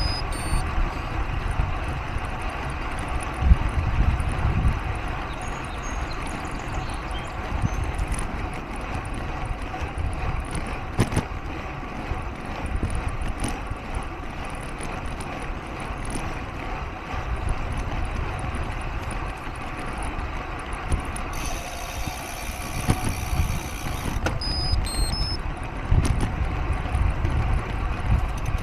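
A vehicle engine running steadily, with a low, uneven wind rumble on the cyclist's action-camera microphone. A higher hiss joins for about three seconds near the end.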